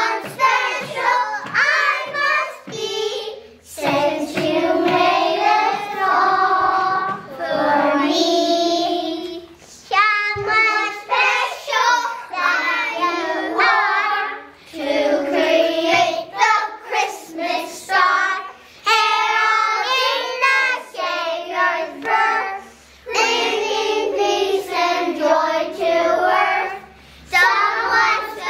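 Kindergarten choir singing together, many young children's voices in unison, phrase after phrase with brief pauses between.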